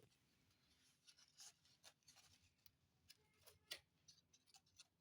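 Faint, irregular small clicks and light scraping of hands handling small hard objects, with one sharper click near the end.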